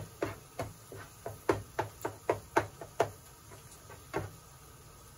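Spatula knocking against the side of a frying pan while stirring fried rice: a quick run of sharp knocks, three to four a second, then a last knock about four seconds in.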